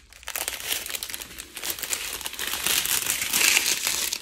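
Strips of small clear plastic zip bags of diamond painting drills crinkling and rustling as they are handled and lifted.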